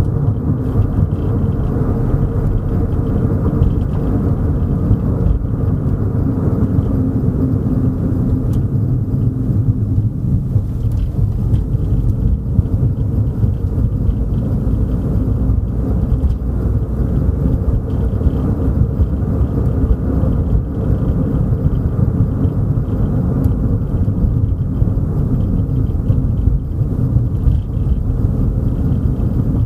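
Car driving along the road, heard from inside the cabin: a steady low rumble of tyre and engine noise.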